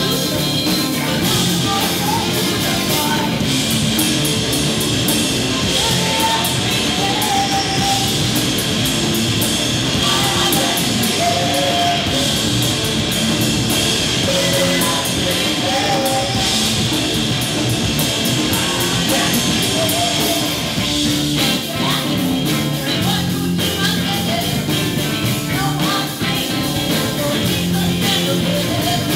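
Live rock band playing: a woman sings lead while playing electric bass, over drums with cymbals, loud and continuous.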